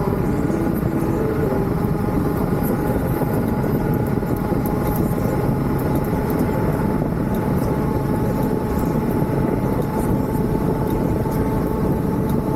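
Hurricane wind blowing hard and steadily, with faint wavering whistles over the roar and scattered light ticks.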